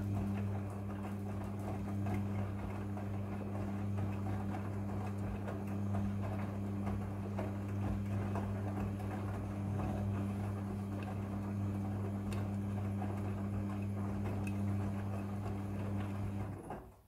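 Midea front-loading washing machine running in its wash cycle: a steady low motor hum over a rough churning noise, which cuts off suddenly near the end.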